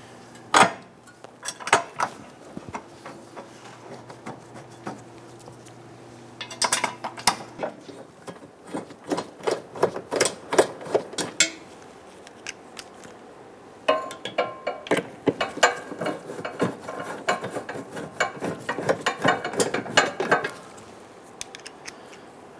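Hand ratchet wrench clicking in several quick runs, with metal clinks, as the crossmember bolts are run in.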